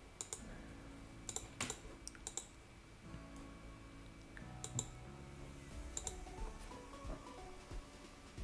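A few sharp computer mouse clicks, the loudest about a second and a half in, over faint background music.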